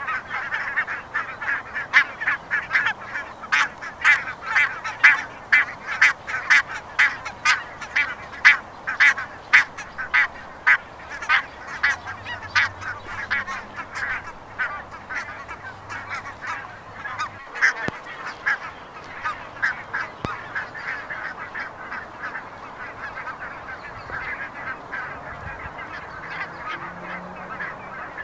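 A large flock of geese honking as it flies over, many calls overlapping in quick succession. The calls are thickest and loudest in the first half and thin out and fade after about the middle.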